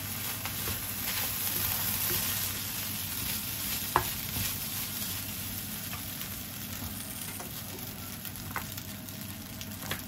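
Fried rice sizzling in a nonstick frying pan while a wooden spatula stirs and turns it, with small scrapes and a single sharp knock about four seconds in.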